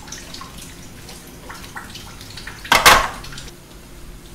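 Chopsticks and a wooden spatula clinking and scraping in a frying pan as pasta is tossed, with one louder clatter a little under three seconds in.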